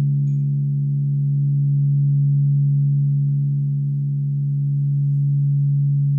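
A crystal singing bowl sounding a low, sustained tone with its overtones, swelling and easing in volume slowly, about once every two seconds.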